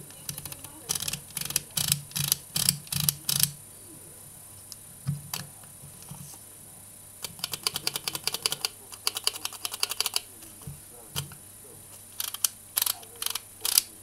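Aperture ring of a Hoya HMC 70–150 mm f/3.8 zoom lens clicking through its click stops in three spells of quick clicks, the fastest run in the middle, with light rubbing from hands on the lens barrel.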